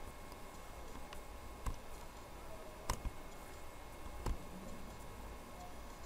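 Computer mouse clicking five or six times at uneven intervals while digits are drawn by hand on screen, over faint steady room noise.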